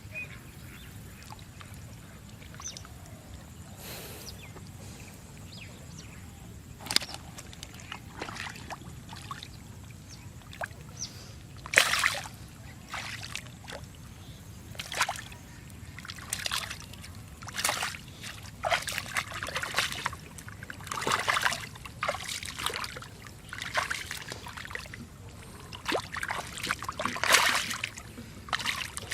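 Splashing and sloshing in shallow muddy water as hands grope through it, short irregular splashes with dripping between them, coming more often in the second half.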